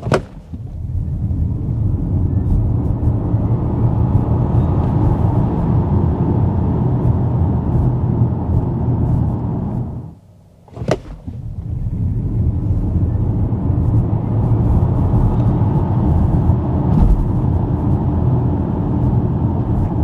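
In-cabin noise of the Zeekr 7X Performance, an electric SUV, launching at full power from standstill: tyre and road noise swells quickly and stays loud as speed builds. It happens twice, with a short drop and a click about halfway.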